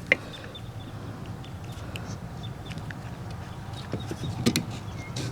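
Small clicks and light rattles of a car window regulator's cable and plastic parts being handled, with a sharp click just after the start and a cluster of louder clicks about four seconds in, over a steady low hum.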